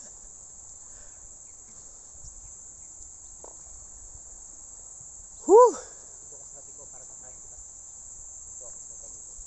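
Steady high-pitched drone of insects. About five and a half seconds in comes a single short, loud call that rises and then falls in pitch.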